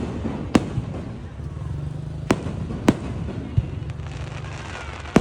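Fireworks shells bursting overhead: several sharp bangs at irregular intervals of about half a second to two seconds, over a steady low rumble.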